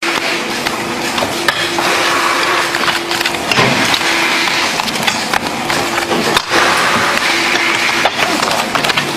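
Paper playing cards being flicked and snapped down rapidly by hand, a quick run of sharp clicks and slaps, over a steady factory hum that breaks off now and then.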